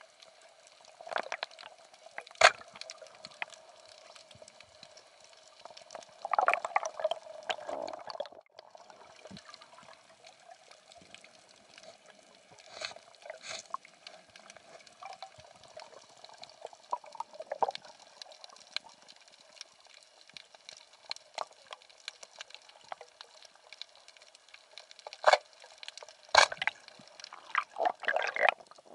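Water sounds as heard underwater: bubbles gurgling in bursts, about six seconds in and again near the end, with scattered sharp clicks over a steady hum. The loudest click comes about two seconds in.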